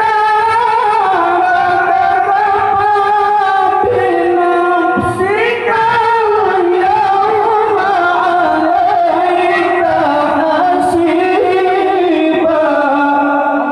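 A male qari reciting the Quran in the melodic tilawah style, amplified through a microphone: one voice holding long notes ornamented with glides up and down.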